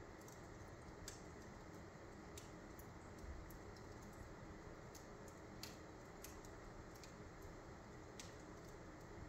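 Wood fire burning low in a fireplace grate: faint, scattered crackles, about six in all, over a steady hiss.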